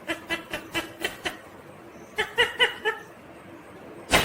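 Ringneck parakeet making rapid laughter-like chuckling notes: a quick run of about a dozen short notes in the first second and a half, and a shorter run of about five notes a second later. A single sharp click near the end is the loudest sound.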